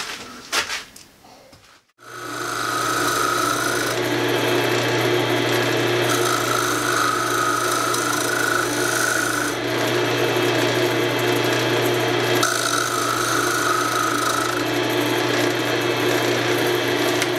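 Wood lathe motor starting about two seconds in and running steadily, while a turning tool scrapes the spinning wooden horn blank in several passes.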